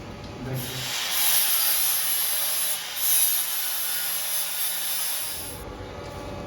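Metalwork on a stainless-steel gate: a continuous harsh hiss of about five seconds, broken once very briefly near the middle.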